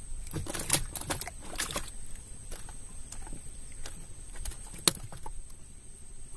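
Scattered light clicks and rustles from a fishing handline being worked by hand in a wooden boat, with one sharp knock about five seconds in.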